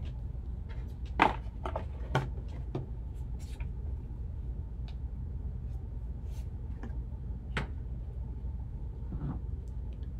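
Cardboard box and foam insert handled by gloved hands: scattered clicks and knocks, the loudest about a second in, over a steady low hum.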